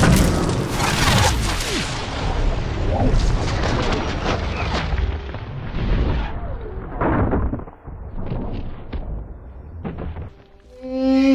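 Aftermath of a film explosion: a heavy low rumble dying away, with scattered crashes and debris impacts that thin out and fade almost to nothing. String music begins at the very end.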